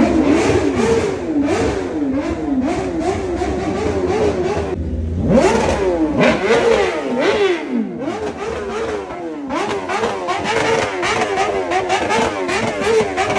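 Motorcycle engines revved with repeated quick throttle blips, the pitch rising and falling over and over about every half second, more than one engine at once.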